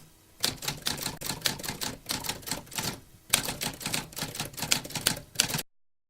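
Rapid, irregular clicking like typing, in two runs broken by a short pause a little after three seconds in. It cuts off abruptly just before six seconds.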